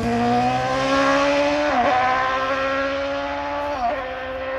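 Hillclimb racing car accelerating hard, its engine note climbing in pitch and then dropping sharply twice, about two seconds apart, as it changes up through the gears.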